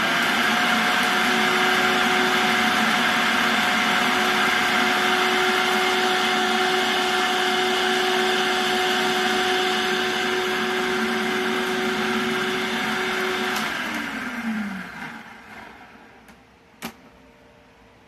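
Electric food processor running steadily, its blade grinding dried green onion tops into powder. About 13 to 14 seconds in the motor cuts off and winds down with a falling whine, followed by a single sharp click.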